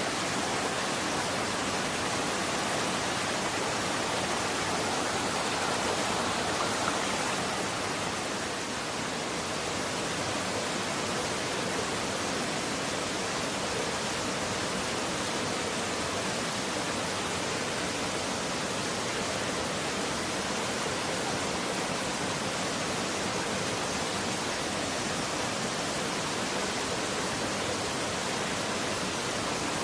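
Running water rushing steadily, an even hiss with no breaks or distinct splashes.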